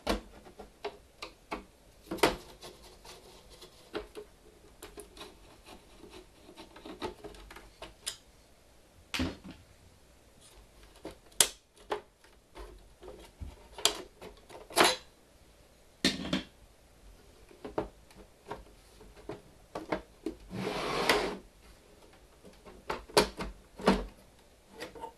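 Clicks, knocks and rattles of the plastic case of an Apple ProFile external hard drive being handled and opened with a screwdriver, with one longer scrape of about a second near the end.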